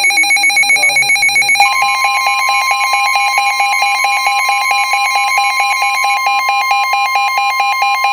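Weather radio emergency alert: a pulsing electronic beep, then about a second and a half in the steady two-tone Emergency Alert System attention signal takes over and holds. It heralds a new severe thunderstorm warning.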